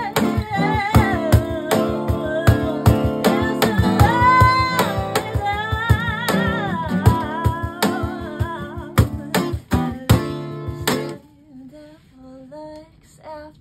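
A live acoustic band plays the closing bars of a song: acoustic guitar strumming, steady cajon beats and a voice singing, with a long held note with vibrato about four seconds in. The song ends on a few last hits about eleven seconds in.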